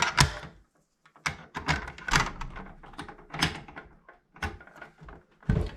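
Handling sounds: a series of knocks, clicks and rubs as things are moved by hand, with a heavier knock near the end.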